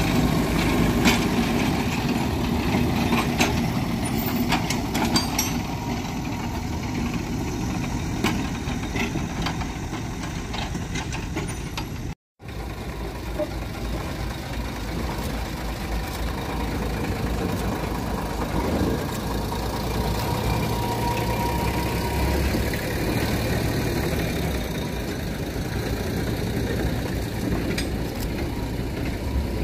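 A forest-railway locomotive's engine runs steadily with a low hum, with a few light clicks in the first seconds. The sound drops out for an instant about 12 seconds in, then the engine carries on.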